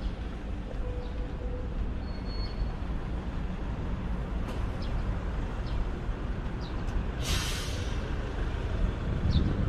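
Low, steady road-traffic rumble. About seven seconds in, a short loud hiss of under a second, like a truck's air brakes releasing.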